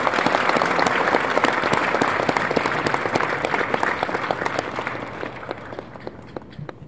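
Studio audience applauding, many hands clapping densely, thinning out and dying away near the end.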